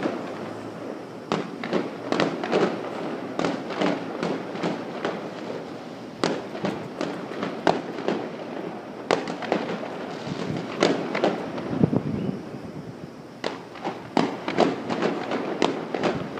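Fireworks going off: many sharp bangs and pops in irregular clusters, with a steady rumbling haze between them.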